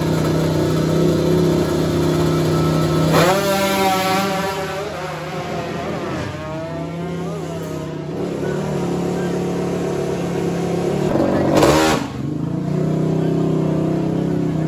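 Drag-racing motorcycle engines running at a high idle and revved in rising sweeps, with one short, very loud blast about twelve seconds in.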